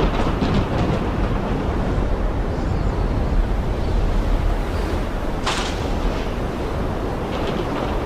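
Heavy rain pouring steadily over a deep, continuous rumble of thunder, with a brief sharper hiss about five and a half seconds in.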